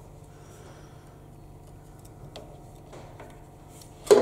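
Faint, light metallic ticks of a steel pin and linkage being worked with a thin tool, over a low steady hum. A sharp metal clack near the end as the pin comes free of the lathe's clutch linkage.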